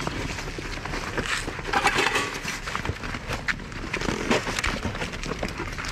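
Irregular scratchy clicks and scrapes from a styrofoam box of live freshwater crayfish being handled.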